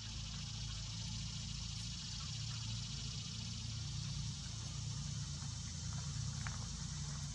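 Steady outdoor background noise: a continuous low hum under an even high hiss, with a couple of faint ticks.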